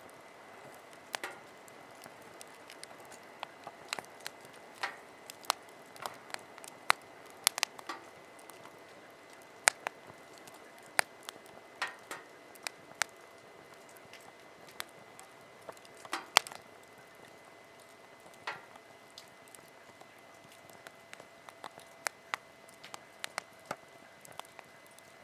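Wood fire crackling, with irregular sharp pops and snaps over a soft hiss.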